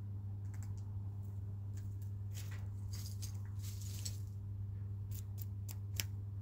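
Chickens pecking: beaks tapping on a hard surface in a scattered run of sharp clicks, with a short rustle in the middle and the loudest tap near the end, over a steady low hum.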